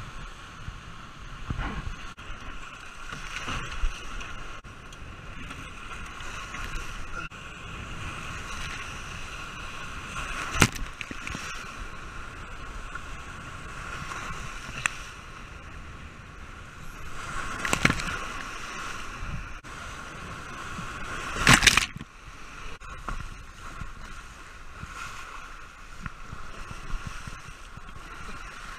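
Water rushing and sloshing against a Sunfish sailboat's hull as it sails through breaking waves, with a few sharp splashes of spray, the loudest about three-quarters through.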